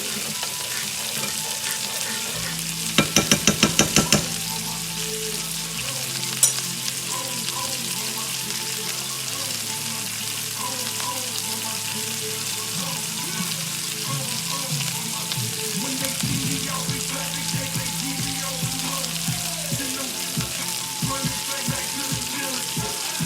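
Chicken frying in a pan with a steady sizzle, the glaze cooking down. A quick run of about eight sharp taps comes a few seconds in, with a single tap a little later, over faint background music.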